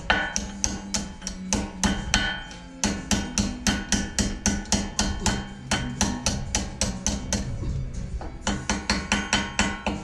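Hammer tapping rapidly on metal at a car's front brake caliper, about four or five sharp strikes a second with two short pauses. Music plays underneath.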